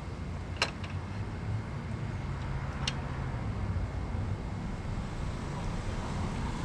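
Steady low rumble of background noise, with two sharp clicks about two seconds apart.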